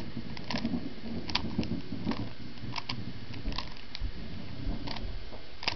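Rubik's Cube being scrambled: its plastic layers clicking as they are twisted, in short irregular clicks a couple of times a second.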